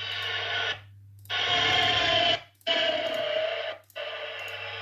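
Recorded ÖBB CityJet electric multiple unit driving-sound samples from an ESU LokSound project, played back four times in a row as short clips of steady motor whine, each cut off abruptly. These are the transition sounds between the rolling sound and the motor sound, here the reverse of the upshift.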